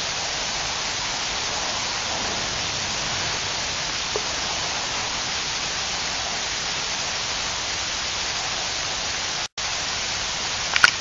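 Steady rushing noise with no pitch to it, cut off by a brief dropout about nine and a half seconds in, with a couple of faint clicks near the end.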